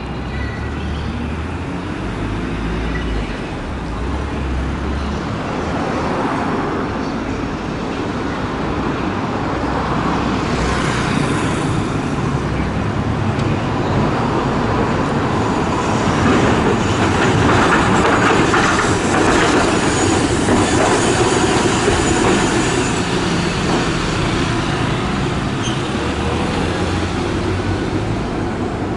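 Hiroshima Electric Railway 1900-series streetcar no. 1906 running along street-embedded track over road traffic. The wheels on the rails and the running gear grow louder as it comes close about halfway through, then ease off as it draws up to the stop.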